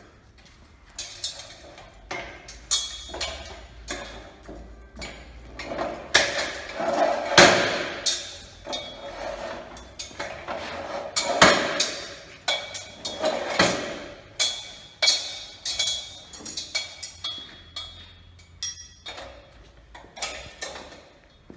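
Irregular metallic clanks and knocks of steel parts being handled: the chain and clamp of a wheeled rail trolley and the square steel sawmill rail resting on it, with a few longer scraping sounds in the middle.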